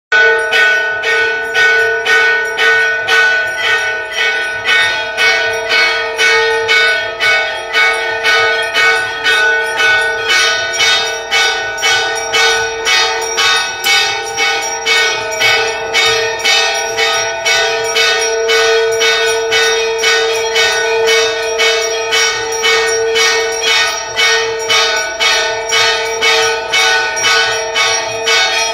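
A Hindu temple bell rung continuously during aarti, struck over and over in a fast, steady rhythm so that its ringing never dies away.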